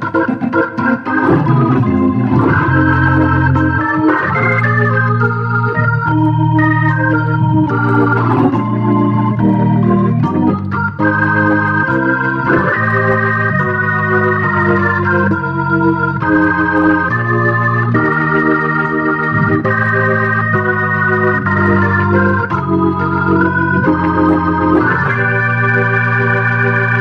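Background music on an organ: long held chords that change every second or two.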